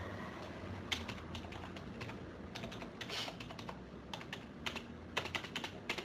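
Typing on a computer keyboard: quick, irregular key clicks in clusters, busiest near the end.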